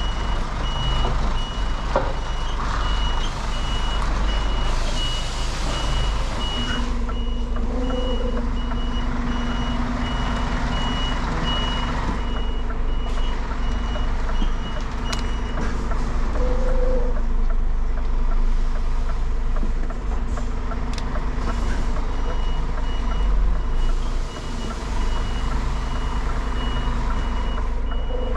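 Reversing alarm of a Scania articulated lorry beeping in a steady, even rhythm as the lorry backs its trailer, over the low rumble of its diesel engine. The beeping stops a little past halfway and starts again near the end.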